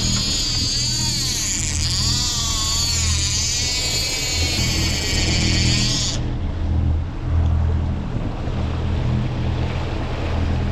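Fishing reel's clicker buzzing as trolling line pays out, its pitch wavering with the line's speed, then stopping suddenly about six seconds in. Underneath, a steady low boat engine drone and water rushing past the hull.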